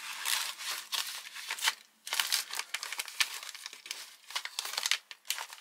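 Foil-lined freeze-dried meal pouches crinkling as they are handled and put down, in two bouts with a short pause about two seconds in.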